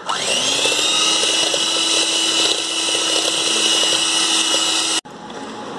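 Electric hand mixer running, its beaters whipping coffee, sugar and hot water into dalgona foam in a bowl. The motor spins up at the start, runs steadily, and is switched off abruptly about five seconds in.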